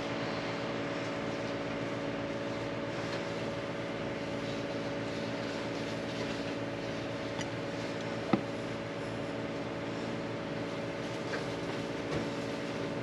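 Steady mechanical hum of a running motor, with a few faint clicks and one sharp knock about eight seconds in.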